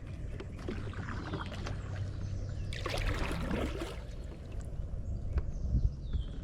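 Kayak and water sounds: a low rumble with scattered knocks, and one louder rushing splash lasting about a second, three seconds in.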